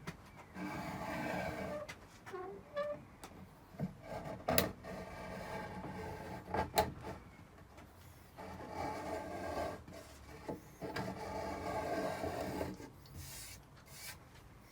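A marking tool scraped along a redwood beam to scribe the rip lines, in several strokes of a second or two each. There are a couple of sharp clicks between the strokes.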